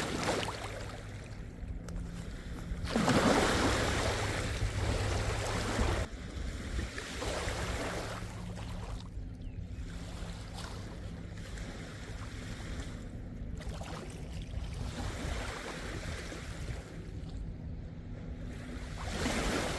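Lake waves washing onto a sandy beach, with wind on the microphone. The rush swells louder about three seconds in and settles again about three seconds later.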